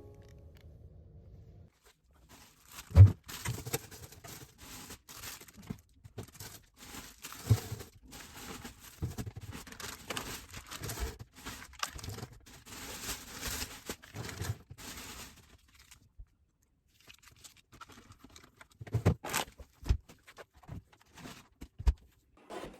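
Irregular rustling and crinkling handling noise, like packaging or material being torn and crumpled, with a sharp knock about three seconds in and a few more knocks near the end.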